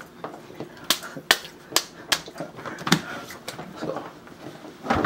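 A series of sharp clicks and knocks, irregularly spaced, about six or seven in all, handling sounds in a small room, with faint voice between them.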